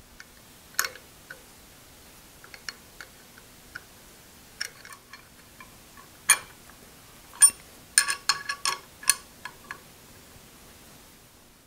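Scattered metallic clicks and clinks of a wrench and steel rods against the cast gear and its hub on a milling machine's head, as the gear is worked loose by hand. A burst of louder, briefly ringing clinks comes about eight seconds in.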